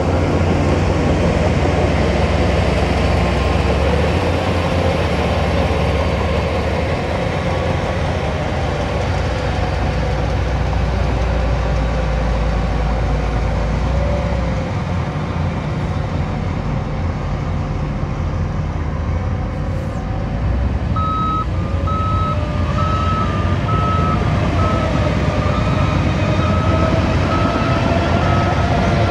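Heavy diesel earthmoving machinery running with a steady low rumble. About two-thirds of the way through, a reversing alarm starts beeping at an even rate as a machine backs up, over an engine whose pitch rises and falls.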